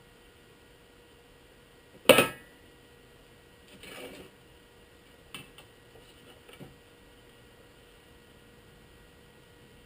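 Over a low steady hum, one sharp, loud knock about two seconds in, followed by a softer scuffing sound and a few light clicks.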